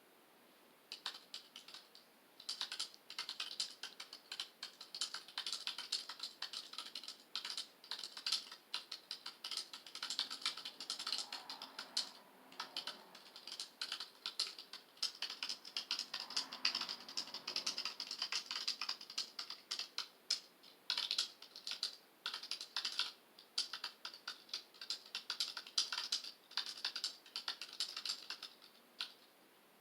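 Typing on a computer keyboard: rapid, irregular key clicks in bursts with short pauses between them, starting about a second in and stopping near the end.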